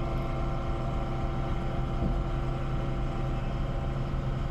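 Diesel engine of an XCMG mining dump truck running at a steady speed, heard from inside the cab, with the PTO engaged to drive the tipping hydraulics while the dump bed stands raised.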